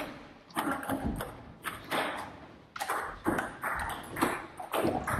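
Table tennis rally: the plastic ball clicking sharply off bats and the table top in quick, irregular hits, ringing in a large hall.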